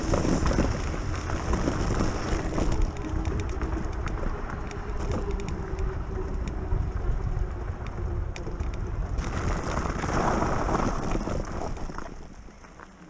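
Wind buffeting a handlebar-mounted camera and bike tyres rumbling over a gravel trail, with a run of quick clicks and clatters as the e-bike rolls across a wooden bridge deck. The noise drops away near the end.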